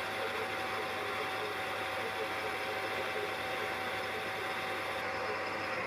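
Myford lathe running, its tool turning down aluminium bar stock: a steady machine hum and cutting noise, with a thin steady whine over it that stops just at the end.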